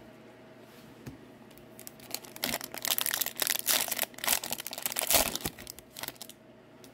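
Foil wrapper of an Upper Deck Series 2 hockey card pack crinkling and tearing as it is opened by hand: a dense crackle that starts about two seconds in and lasts about four seconds.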